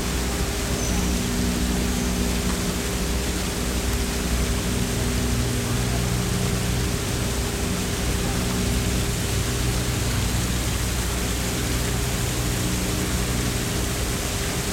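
Steady rushing ambient noise of an indoor butterfly greenhouse, with a low, even hum beneath it.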